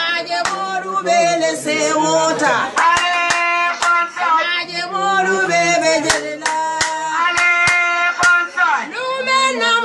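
Voices singing a song in long held notes, with irregular hand claps about one or two a second.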